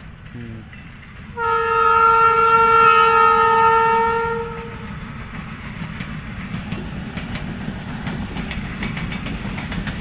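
Train horn sounding one steady blast of about three seconds, starting about a second and a half in, followed by the fast rhythmic clatter of train wheels over the rail joints as the train runs past.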